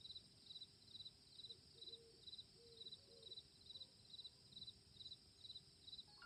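Cricket chirping steadily, about two short chirps a second, each a quick trill of pulses, over a faint hiss.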